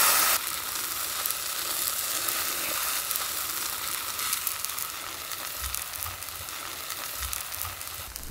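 Ham and cheddar sandwich on sourdough frying in a pan. It sizzles loudly for the first half-second as the spatula presses it, then settles to a steady sizzle with fine crackling.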